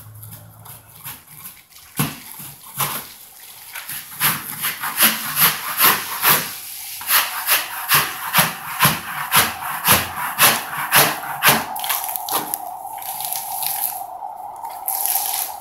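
Popcorn ceiling texture being scraped off with a wide drywall scraper, in repeated strokes about two to three a second, the loosened texture showering down onto the plastic drop sheets. A steady tone comes in near the end.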